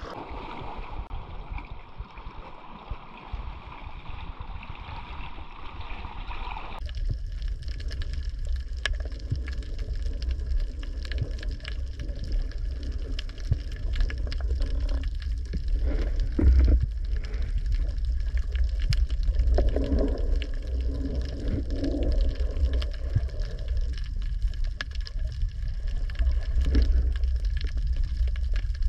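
Wind and sea noise on an open microphone for the first few seconds, then, after a sudden change, the muffled sound of an underwater camera in its housing: a steady low rumble of water with scattered crackling clicks and occasional gurgling swells.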